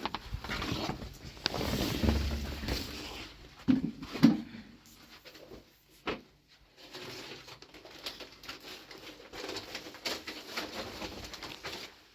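Two short, low coos, like a bird's, about four seconds in, over scattered rustling and handling noises.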